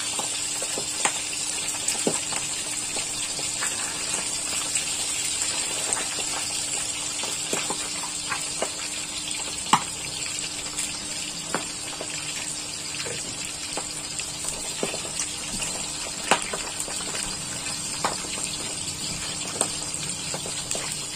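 Hot oil sizzling steadily in a wok during deep-frying of tempeh, with scattered sharp pops and clicks.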